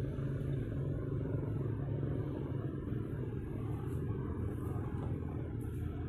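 Steady low rumble of road traffic, with faint brief hisses about four seconds in and near the end.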